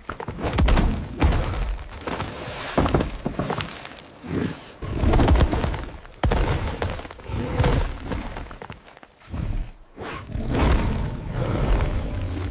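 Heavy crashing impacts, one after another about every second: deep thuds with wood splintering and clay and debris shattering, as a giant creature smashes through crates, pots and a wooden wall. There is a short lull about three-quarters of the way through.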